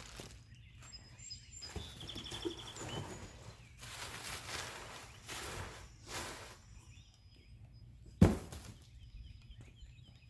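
Scattered handling and movement noises with one sharp thump about eight seconds in, and faint bird chirps in the background.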